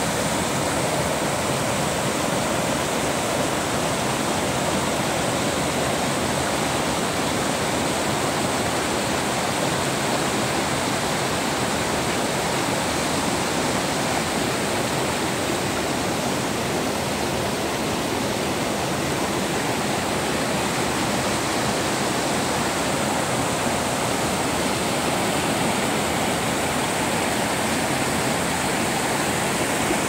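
Rocky mountain stream rushing and cascading over boulders: a steady, unbroken rush of white water.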